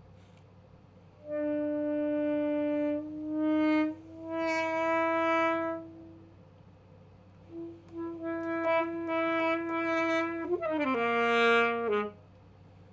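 Unaccompanied alto saxophone playing sustained single notes, then a second phrase that ends in a quick run of falling notes before stopping.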